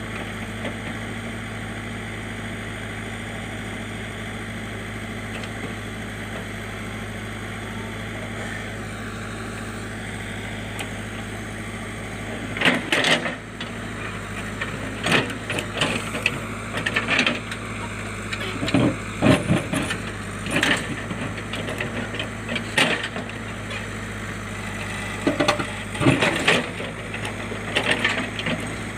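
JCB backhoe loader's diesel engine running steadily. From a little under halfway in, irregular loud knocks and scrapes come as the bucket works rock and soil.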